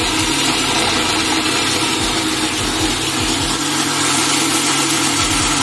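Electric mixer grinder motor running loud and steady, its jar grinding fried tomatoes, onions, chillies and cashews into a thick puree with no water added.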